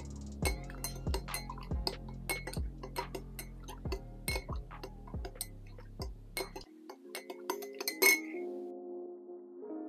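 Clinks against a ceramic mug as a tea bag is steeped in hot water, with one sharp clink about eight seconds in, over background music with a steady beat that changes to a different tune about two-thirds of the way through.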